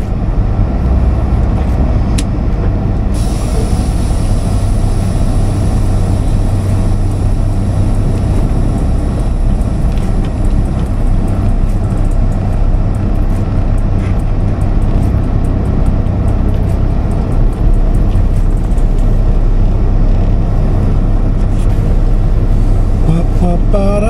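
Semi truck's diesel engine running steadily, a loud low rumble.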